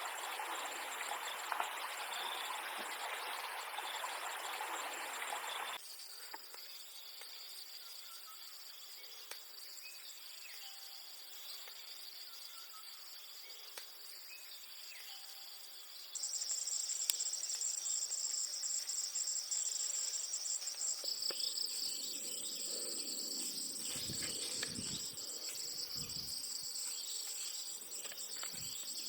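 Rushing water for the first few seconds, then an abrupt cut to insects chirping in steady high-pitched trills, growing louder about halfway through. Some irregular low knocks sound under the insects near the end.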